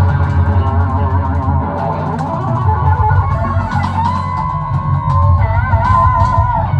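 Rock music with electric guitar over bass and drums. From about four seconds in, the lead guitar holds long notes with a wavering vibrato.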